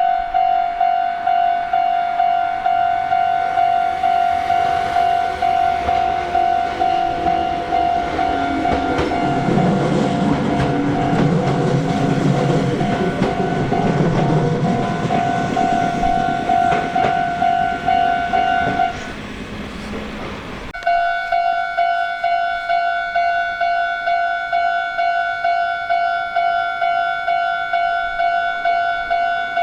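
Japanese level-crossing warning bell clanging over and over while an electric train runs through the crossing, its rumble loudest from about nine to fifteen seconds in. The bell stops briefly just after the train clears, then starts again, the crossing warning another train is coming.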